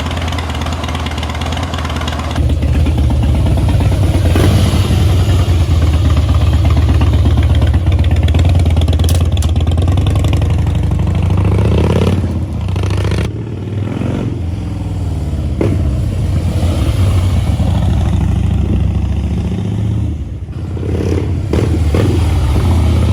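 2011 Harley-Davidson Heritage Softail's air-cooled Twin Cam 96 V-twin running loudly, freshly started after a no-start repair that included a new fuel pump. It picks up a few seconds in, and is revved up and down a few times in the second half.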